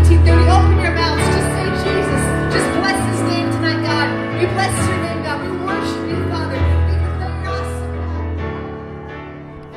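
Worship music with singing over sustained bass notes, fading out near the end.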